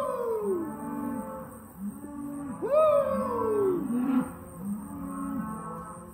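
A cow mooing twice, each call swooping up in pitch and then sliding down over about a second, the second about three seconds in. Background music with short repeated plucked notes plays underneath.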